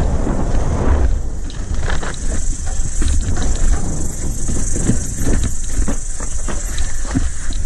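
Wind buffeting the microphone of a helmet-mounted camera while a mountain bike is ridden over bumpy grass: a steady low rumble, with the bike's frame and chain clattering in short knocks throughout.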